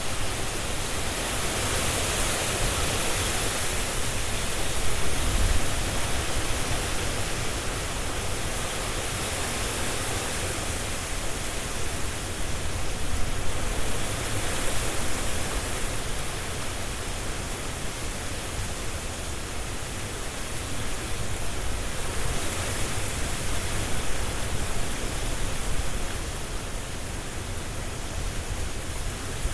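Strong wind blowing through trees: a dense, steady rushing noise that swells and eases slowly every several seconds.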